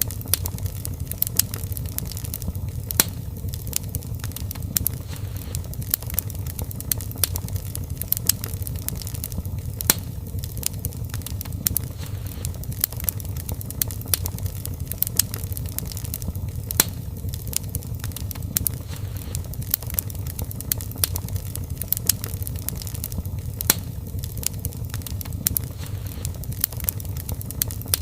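Wood fire burning in a fireplace: a steady low rumble of the flames with many sharp, irregular crackles and pops.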